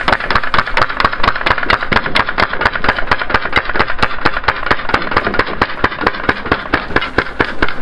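Umarex Legends M3A1 grease gun replica, a CO2 full-auto BB gun, firing a long, steady string of rapid, evenly spaced shots as BBs strike a row of soda cans.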